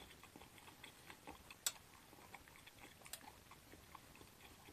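Faint chewing of hot-plate-fried shrimp shumai with crisp wrappers: irregular soft mouth clicks, with two sharper clicks, one a little under two seconds in and one about three seconds in.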